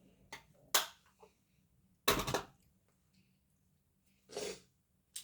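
Small makeup items being handled: a few sharp clicks in the first second, then a short clatter about two seconds in, and another click near the end.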